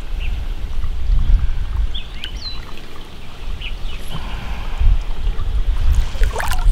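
Muddy water sloshing and trickling while river snails are dug out of the mud by hand, over a heavy low rumble. Scattered bird chirps sound throughout, and a short, louder splash or rustle comes just before the end.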